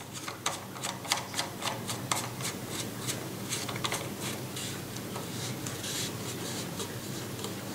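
Handling noise as a Dendoumaru Beast Master 9000 ZB electric fishing reel is fitted onto a rod's reel seat: a run of light clicks and rubbing scrapes over the first five or six seconds, thinning out to a faint steady hiss.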